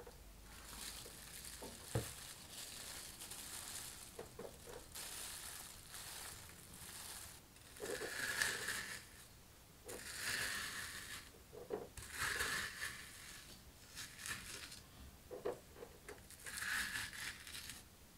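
Metal ice cream scoop scraping across frozen homemade ice cream, in a series of scraping strokes about a second long each, coming roughly every two seconds in the second half, with a few sharp knocks in between.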